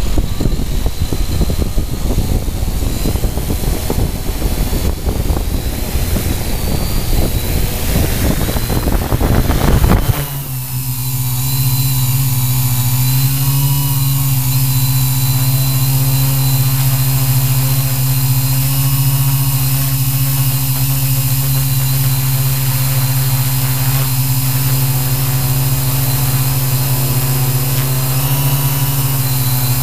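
Electric motors and propellers of a Q800 multirotor drone, heard through its onboard camera. For the first ten seconds a loud, rough rush of prop wash as it sits on the grass; then, about ten seconds in, the sound changes abruptly to a steady pitched hum as it lifts off and hovers.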